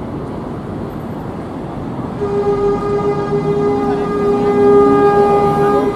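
Madrid Metro train rumbling, then sounding a steady, single-pitched warning signal from about two seconds in, held for about four seconds.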